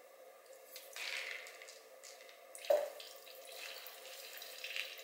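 Engine coolant dripping and trickling out of a KTM RC390's opened coolant drain bolt hole; the flow picks up about a second in, with one louder splash near the middle.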